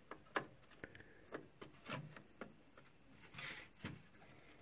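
Faint clicks and taps of a G.Skill Ripjaws RAM stick being fitted and pressed into a motherboard memory slot, with a brief rustle about three and a half seconds in.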